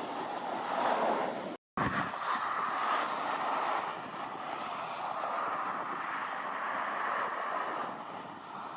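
Steady rushing noise of a jet airliner's engines, with no distinct tones. It cuts out abruptly for a split second just under two seconds in, then carries on as before.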